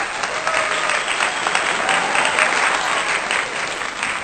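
Crowd applause, many hands clapping in a dense, steady patter with faint voices in it.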